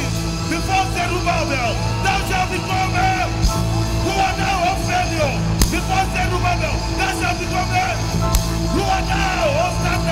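Loud backing music with steady low bass, with yelling voices over it. There are two sharp knocks, about halfway through and later.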